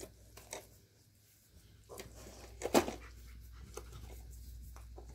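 Dogs sniffing and panting close by, with a few small clicks and one louder short thump a little under three seconds in.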